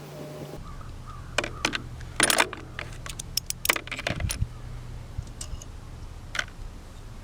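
Small metal parts and hand tools clinking and clattering in an irregular cluster of sharp clicks, then a few single clicks, as bolts come off a small-engine ignition coil. A steady low hum runs underneath.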